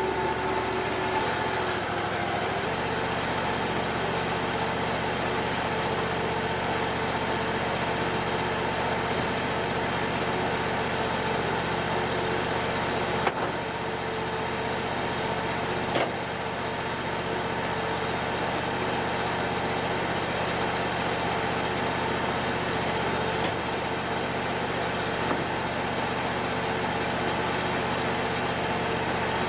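Bandsaw sawmill's engine running steadily, with the hum rising slightly about three seconds in and a few sharp knocks near the middle.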